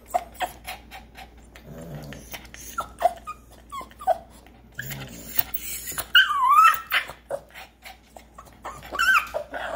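Boston Terrier whining and whimpering in short bursts between low grunts and clicks. A longer wavering whine comes about six seconds in and another near the end. She is whining to have her ball thrown again.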